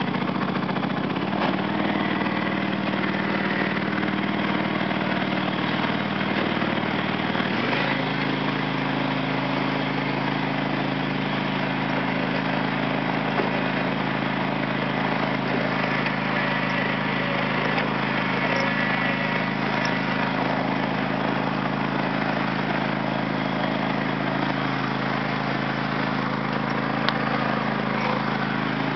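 Ride-on lawn tractor's engine running as the tractor is driven, its speed stepping up about a second in and again near eight seconds, then holding steady.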